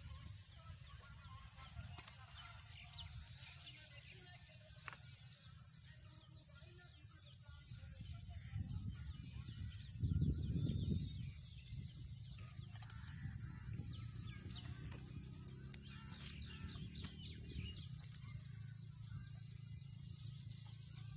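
Wind buffeting a phone microphone as a steady low rumble, with a stronger gust about ten seconds in. Faint bird calls and a few light clicks sound over it.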